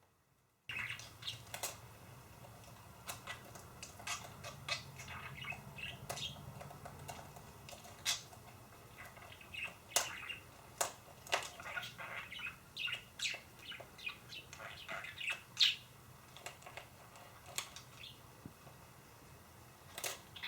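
Pet budgerigar chirping and chattering in many short, scattered calls, starting about a second in, over a steady low hum.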